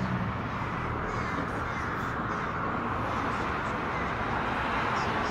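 American crows cawing, over a steady wash of road traffic noise.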